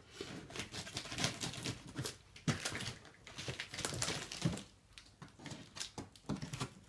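Hands picking and scratching at parcel tape and plastic wrap on a taped-up cardboard box, trying to get it open: irregular scrapes, taps and crinkles of tape and cardboard.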